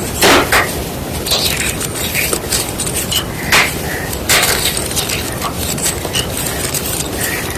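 White gym chalk being crunched and crushed: a string of sharp crunches over a steady crumbly crackle. The loudest crunches fall just after the start and around the middle.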